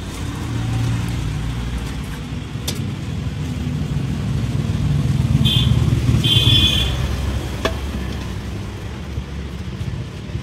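Road traffic: a low engine rumble that swells and then fades as vehicles pass, with two short high-pitched beeps just past the middle.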